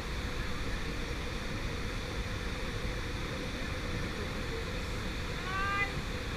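Steady rushing noise of a waterfall. A short vocal sound rises in pitch near the end.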